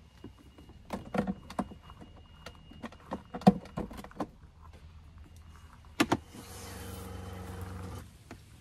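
Plastic clicks and knocks as the coiled hose and spray head of a camper van's outdoor shower are pulled out and handled. A sharp click comes about six seconds in, then a steady electric hum for just under two seconds as the water pump runs to push antifreeze through the line.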